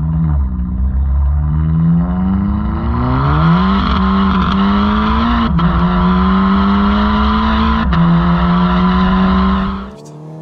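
Volkswagen Scirocco R's tuned turbocharged four-cylinder engine and valveless exhaust at full throttle, its pitch climbing through the gears. Upshifts bring sharp exhaust cracks about five and a half and eight seconds in. The sound falls away abruptly near the end.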